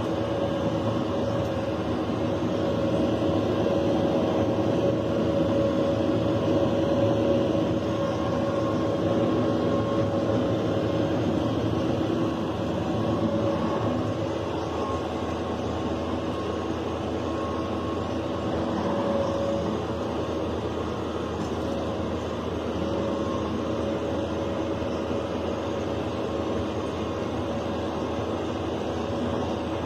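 Haybine's engine and cutting header running steadily while cutting wheat, heard from inside the cab: a constant machine drone with a steady whine on top.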